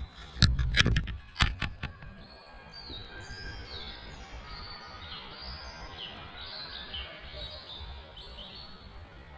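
Loud knocks and bumps in the first two seconds as a lynx kitten noses and paws at the camera. After that, birds sing with short, high notes that step up and down.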